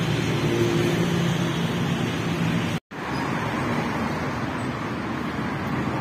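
Steady city street traffic noise, a wash of engines and tyres with a low engine hum in the first half. The sound cuts out for an instant just under halfway through.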